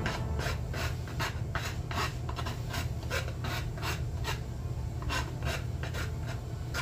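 Rasp filing a chamfer into hardwood, with rhythmic back-and-forth strokes about two to three a second and brief pauses between runs.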